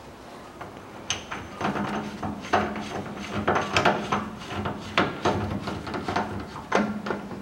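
Metal clinks, knocks and scrapes of a large hub-nut socket being slid over the stub axle and turned by hand onto the rear wheel-bearing hub nut, a dozen or so sharp knocks starting about a second in.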